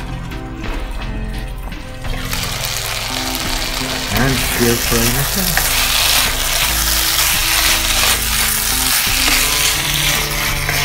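Chicken and broccoli stir-fry sizzling in a nonstick pan. The sizzle starts about two seconds in as the lid comes off, and a spatula stirs and scrapes through the pieces in the sauce.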